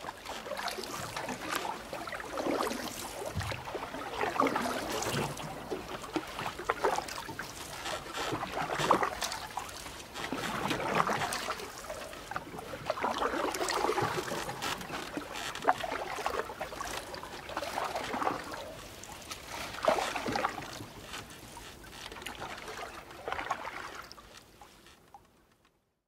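Water lapping and sloshing in slow, uneven swells, fading out near the end.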